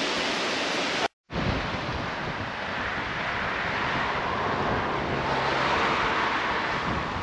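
Steady rushing of a waterfall and fast-flowing mountain creek. It cuts out for a moment about a second in, then carries on.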